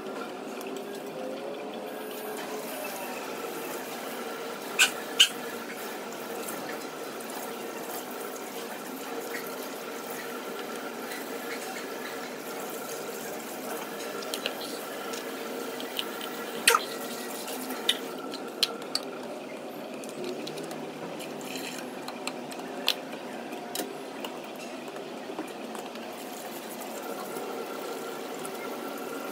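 Steady running or bubbling water in a kitchen, with a few sharp clinks of utensils against a pan or dish: two about five seconds in and a cluster between about 17 and 23 seconds.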